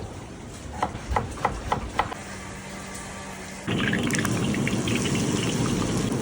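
Knife chopping on a board, several quick strokes of about four a second. A little past halfway a loud, steady hiss sets in abruptly and carries on.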